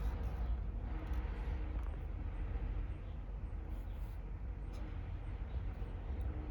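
Steady low rumble of background noise with a faint hiss.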